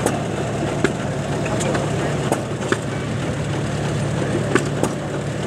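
Farmall tractor engine running steadily as the tractor drives slowly, with scattered sharp clicks over the hum.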